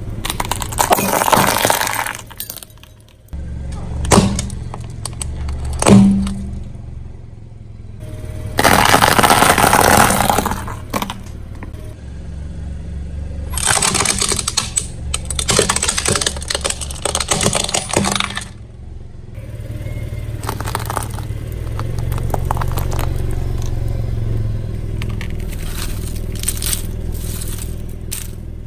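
A car tyre rolling over and crushing a series of brittle and plastic objects, among them a plastic toy water gun, with long stretches of cracking and crunching and a few sharp cracks, over a low steady drone.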